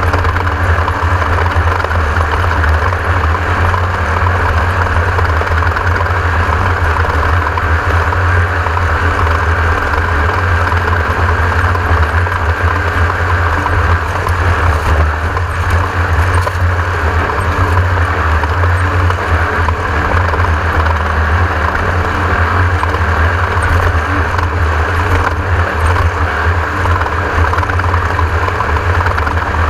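Class 1600 off-road race car's air-cooled 1600cc Volkswagen engine running loud and steady, with no revving up or down.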